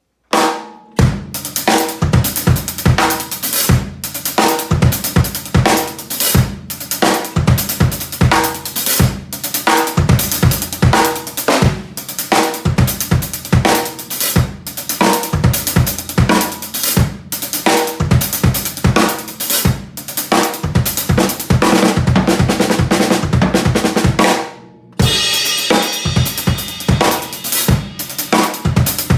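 Acoustic drum kit with Sabian cymbals played with sticks: a steady, busy groove of bass drum, snare and hi-hat with cymbal hits. After a brief break near the end, the cymbals ring out in a sustained wash under the beat.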